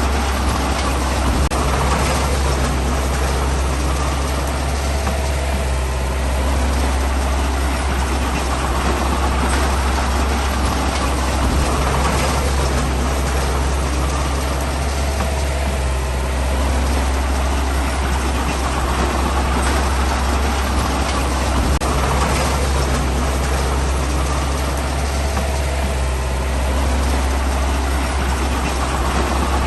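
Heavy construction vehicle's diesel engine running steadily, with a deep low rumble and mechanical clatter that swells slightly every few seconds.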